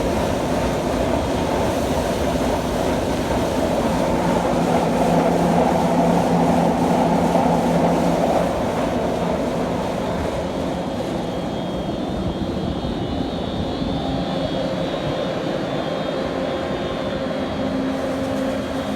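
Super B grain dryer's big fan running at speed, a loud continuous drone with a few steady held tones. About halfway through the hiss eases and a faint high whine comes in.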